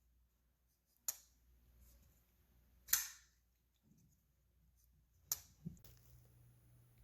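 Bestech Texel flipper knife on IKBS bearings being flicked, the blade snapping out with a sharp click three times, about two seconds apart, with a fainter click just after the third.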